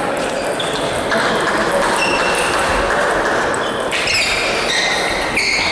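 Table tennis balls striking table and bats: a run of short, hollow pings at differing pitches, thickest about four seconds in.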